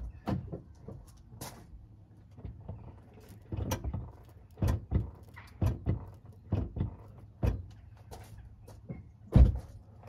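Knocks and clunks of a car door and the brake pedal being worked as the pedal is pumped with the engine off, to bring the caliper piston back against the pads. A run of separate thuds through the middle, and one heavy thump near the end.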